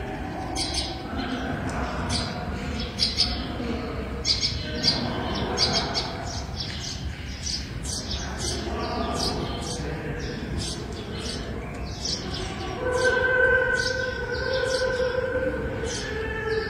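Small bird chirping, short high chirps repeated about twice a second, over a faint murmur of voices. Near the end a steady held tone sounds for about three seconds.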